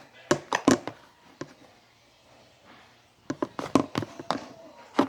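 Sharp taps and knocks of a container and small items being handled and set down: a cluster in the first second, a quiet gap, then a quicker run of clicks near the end.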